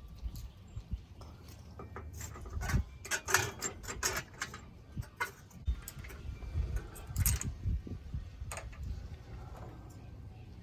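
Metal parts and hand tools clinking and rattling as a wheel hub assembly and its bolts are handled, a flurry of sharp taps and clatters between about two and eight seconds in.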